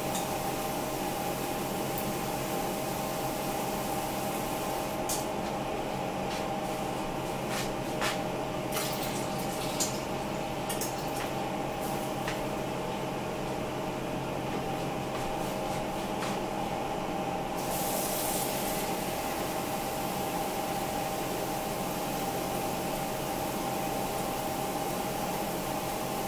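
Water poured from a plastic measuring cup into a steel cooking pot, with a few light clinks of handling, over a steady hum.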